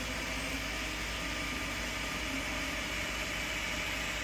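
FDM 3D printer running a print: a steady hiss from its cooling fans, with faint shifting whirs from the stepper motors as the direct-drive print head moves.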